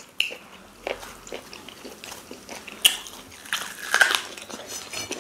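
Close-miked eating sounds: chewing, biting and wet mouth smacks on fufu and egusi soup with meat, with scattered sharp clicks. The loudest bites come about three and four seconds in.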